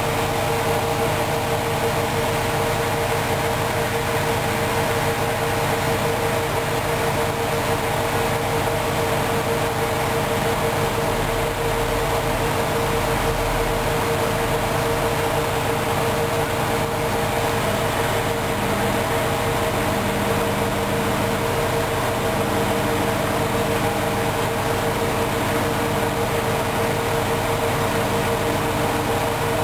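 Hoover Dynamic Wash 10124 DP washing machine in its final spin. The drum turns steadily at speed, giving a constant whine over a low hum.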